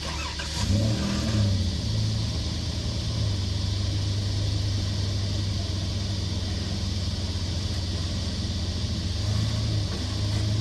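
Four-wheel-drive vehicle's engine revving up briefly about a second in, then running steadily at low revs as the vehicle crawls over rocks.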